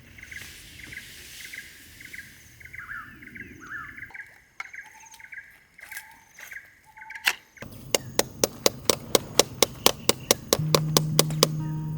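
Birds calling, one short chirping call repeated about twice a second. About seven seconds in comes a sharp click, then music starts with a fast, even rhythm of about four strokes a second and a steady low note near the end.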